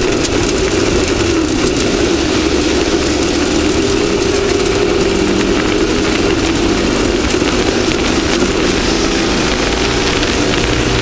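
Off-road race vehicle's engine running steadily at speed under a constant rushing noise, its pitch shifting only slightly.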